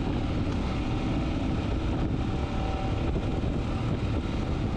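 Royal Enfield Scram 411's single-cylinder, air-cooled 411 cc engine running steadily at cruising speed, mixed with wind and road noise on the microphone.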